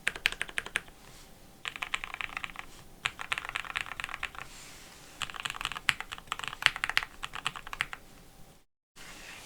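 Typing on a Geon Frog mechanical keyboard with lubed and filmed Hyperglide Black linear switches, aluminum plate and PBT keycaps: bursts of quick keystrokes with short pauses between them. Near the end the sound briefly cuts to silence.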